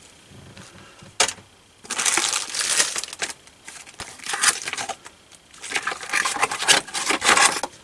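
Packaging crinkling and rustling in several bursts, with a short sharp click about a second in, as the CPU cooler's mounting brackets and instruction sheet are sorted through.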